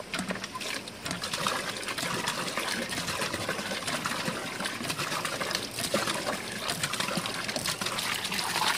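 Water gushing from the spout of a newly installed hand pump as its handle is worked, splashing onto the ground in a steady stream.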